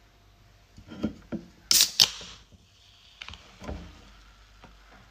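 Aluminium soda can opened by hand. A few light clicks at the ring-pull lead into a sharp crack and fizzing hiss as the tab breaks the seal, about two seconds in and the loudest sound. A few soft knocks of handling follow.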